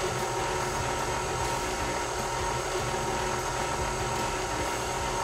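Electric tilt-head stand mixer running steadily, its flat beater turning through creamed butter-and-sugar batter in a glass bowl.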